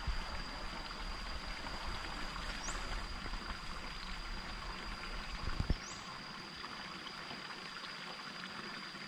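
Water trickling and running steadily into a pond, with a constant thin high-pitched whine and a short rising chirp every two to three seconds above it. One low thump about five and a half seconds in.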